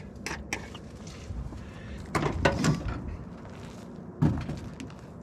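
A few knocks and clunks of handling around an old pickup truck, with a heavier thump about four seconds in; the engine is not running.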